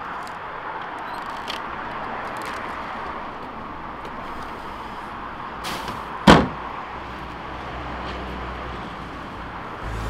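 Plastic lid of a large wheelie bin slammed shut with one loud bang about six seconds in, over steady distant traffic noise. A few faint knocks come before it.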